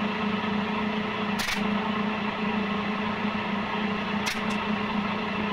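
A steady low hum, with three short scratchy sounds: one about a second and a half in and two close together near the end.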